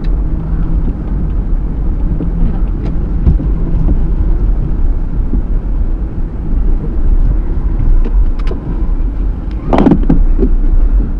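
Car cabin noise while driving slowly: a steady low rumble of engine and tyres, with a short, louder burst near the end.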